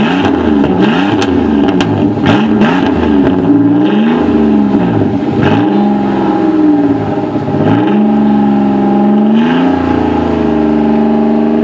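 1992 Buick Regal's V6 engine running with the muffler removed, giving a raw, unmuffled exhaust sound. It is revved in quick repeated blips with a few sharp cracks, then in slower swells, and about eight seconds in it settles to a steady, higher engine speed.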